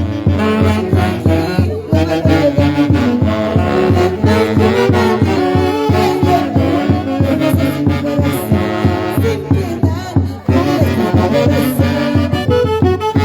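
A live Huancayo orquesta playing dance music, its horn section carrying the melody over a steady, driving beat, with a brief break about ten seconds in.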